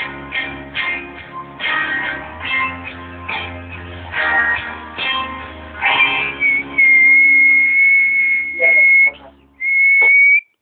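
Strummed guitar chords, then a loud, steady, high whistled note held for about two seconds, followed by a shorter one near the end that ends abruptly.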